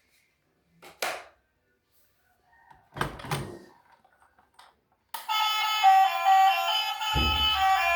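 A few brief knocks, then music starts about five seconds in, with a bass line joining near the end.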